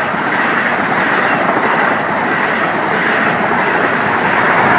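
An InterCity 125 high-speed train, with Class 43 power cars at each end, running past over the level crossing: a loud, steady rush of wheels on rail.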